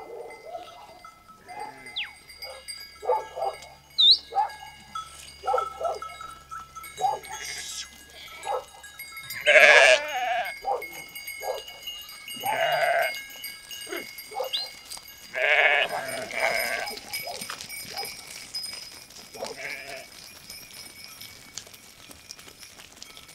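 A flock of sheep bleating, many short calls overlapping one after another, the loudest about ten, thirteen and sixteen seconds in.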